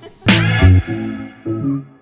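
Background electronic music: a loud drum hit about a quarter second in, then repeated synth chords.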